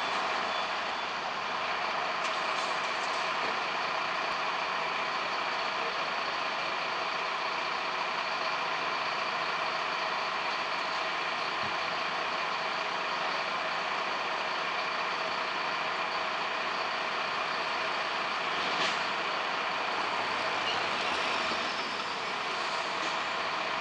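Steady street and engine noise, an even hiss with faint steady tones that hardly changes in level, with one short knock about 19 seconds in.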